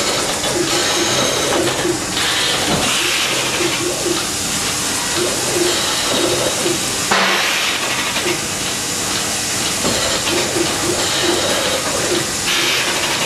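Robotic milking machine at work: a steady loud hiss, with short pulsing tones repeating about three times a second.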